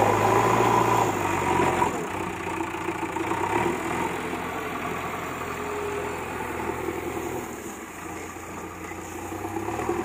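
JCB backhoe loader's diesel engine running as the front bucket loads soil, then carrying the full bucket. The engine is louder for the first two seconds and settles lower after that.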